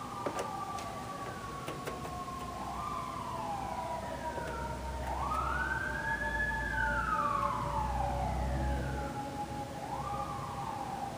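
Sirens wailing: long rising-and-falling sweeps over a steadier tone that slowly sinks in pitch, with a low rumble swelling through the middle.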